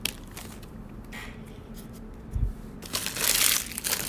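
Crinkling and rustling of a foil trading-card pack wrapper being handled, with a soft low thump a little past halfway and a louder rustle near the end.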